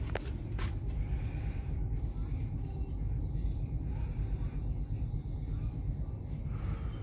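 Steady low rumble of the passenger ship KM Leuser's onboard machinery, heard from inside the ship, with two sharp clicks just after the start.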